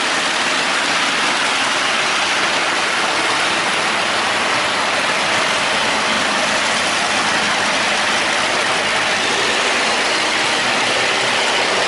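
Boat engines running steadily: a loud, even drone with a wide hiss and no change in pace.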